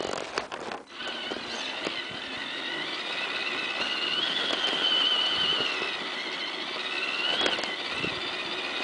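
Tamiya CR-01 RC crawler's electric motor and gearbox whining as it drives through wet snow. The whine rises in pitch about four seconds in, eases off, and swells briefly again near the end. A few knocks come in the first second.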